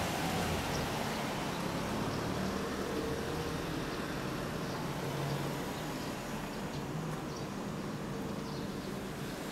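Street traffic noise: a vehicle passing fades out early on, leaving a steady low hum of road traffic.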